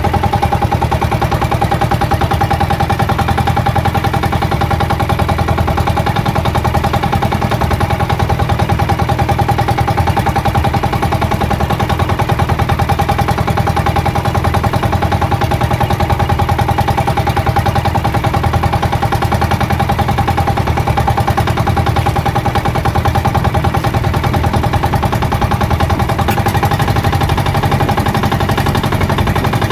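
Outrigger boat's inboard engine running steadily at trolling speed, with a fast, even putter.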